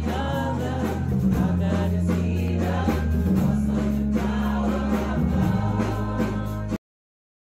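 Live church worship music: a band and a congregation singing together over steady low bass notes. It cuts off abruptly near the end.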